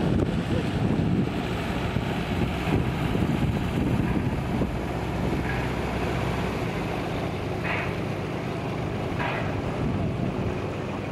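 Wind gusting on the microphone over the low steady hum of a boat engine and the wash of sea water. The gusts ease about six seconds in, leaving the engine hum plainer.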